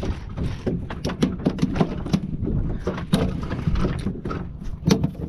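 Irregular knocks and splashes of water against a small boat's hull, several a second, over a steady low rumble of wind on the microphone.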